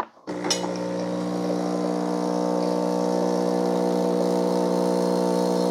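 Farberware 20-bar espresso maker's vibration pump starting up and running with a steady hum as it primes, drawing water toward the steam wand before any water comes out.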